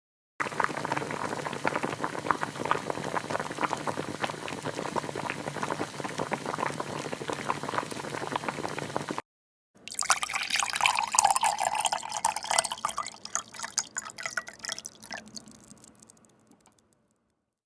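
Stock sound effects from a video-editing app: a dense, fast crackle of drips and liquid that stops abruptly about nine seconds in. After a brief cut to total silence, a second crackling clip starts and fades out.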